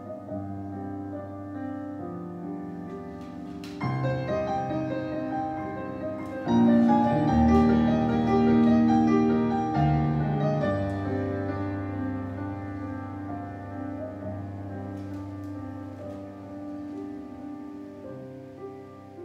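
Solo piano playing slow adagio accompaniment for a ballet barre exercise: sustained chords that swell to their loudest about six seconds in and then gradually die away.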